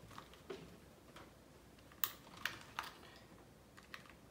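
Light, scattered clicks and taps of a hex driver and small screws against the plastic chassis of a Traxxas 4-Tec RC touring car as screws are driven in, about half a dozen, the sharpest a couple of seconds in.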